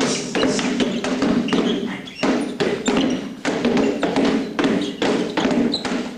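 Kali sticks striking rubber tyres held up by training partners, a dense, irregular run of thuds and taps from several people at once, several strikes a second, with hall echo.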